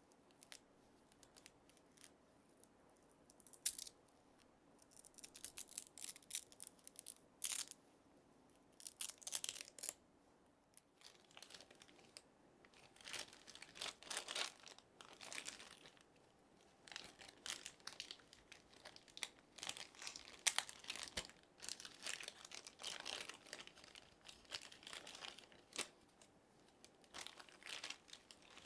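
Packaging being handled and unwrapped: irregular bursts of crinkling and tearing, with a few sharp clicks.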